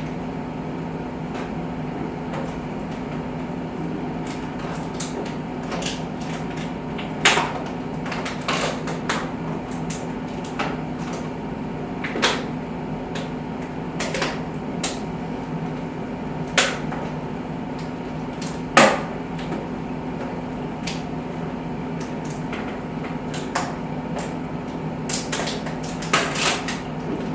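Scattered knocks and clacks of things being picked up, set down and moved while a table is cleared and a cupboard is opened, a few sharper knocks standing out and a busier cluster near the end, over a steady low hum.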